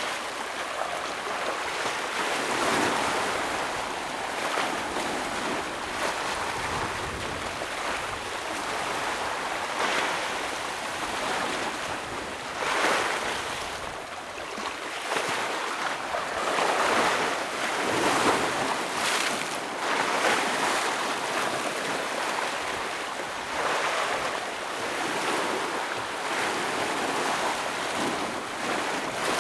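Ocean waves breaking and washing over rocks, surging up every few seconds in an irregular rhythm over a constant rush of surf.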